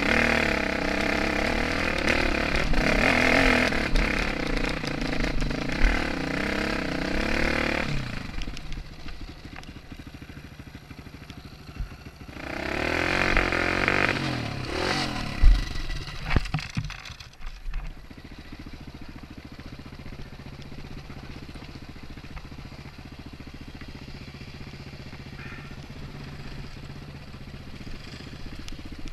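KTM enduro motorcycle engine revving under throttle on a rocky trail, its pitch rising and falling, then easing off about eight seconds in. A second burst of throttle comes around twelve seconds, followed by a few sharp knocks from the bike over rocks, and the engine then runs low and quieter for the rest.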